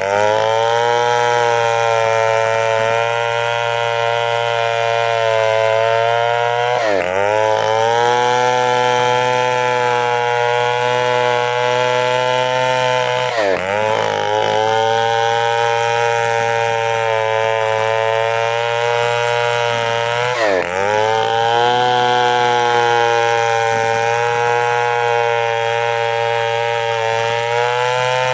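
Two-stroke chainsaw running at high revs while cutting wood, its engine note steady and then dropping sharply and climbing straight back three times, about every seven seconds.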